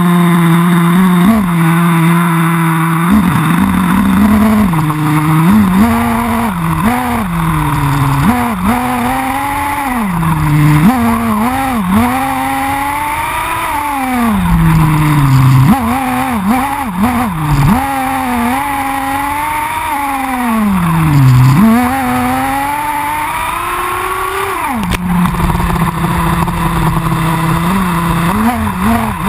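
Two-stroke nitro glow engine of an XTM X-Terminator2 RC buggy, heard close up from a camera on the chassis. It idles steadily for the first few seconds, then revs up and down over and over as the buggy is driven, drops back to idle around 25 seconds in and revs again near the end.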